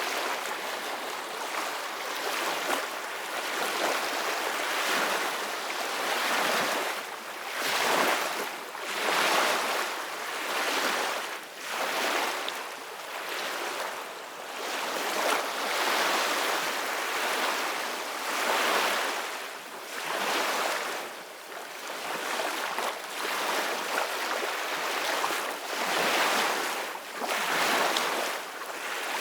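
Sea waves washing and splashing, with wind, in uneven surges every second or two. The sound is a hissy wash with little deep rumble.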